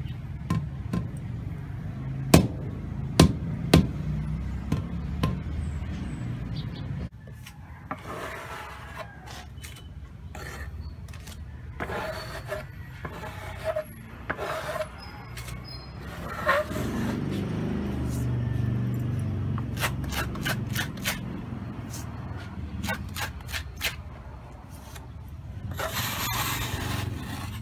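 Rubber mallet knocking an AAC block into place, a few sharp knocks in the first four seconds. Then a steel trowel scraping and spreading mortar over the block faces and joints, with scattered clicks and a longer rasping scrape near the end.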